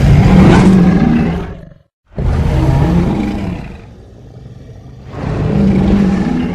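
Designed dinosaur roar sound effects for an Albertosaurus, pieced together from several recordings. One roar of about two seconds is followed by a short break and a longer roar. That roar dies down to a low rumble and swells into another roar near the end.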